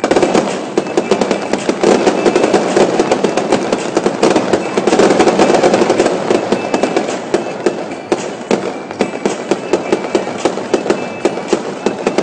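Aerial fireworks bursting into a dense, rapid crackle that starts suddenly. It is heaviest in the middle and thins to scattered pops near the end.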